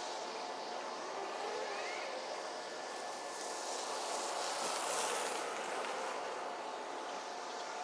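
Distant vehicle noise: a steady hum carrying a few faint steady tones, swelling about five seconds in as something passes, then easing back.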